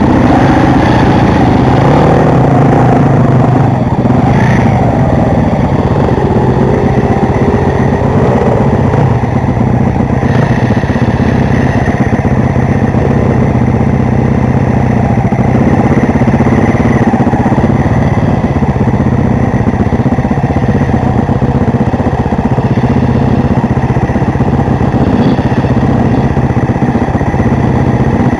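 Enduro motorcycle engines running steadily at a near-constant pitch, loud, with no big revs.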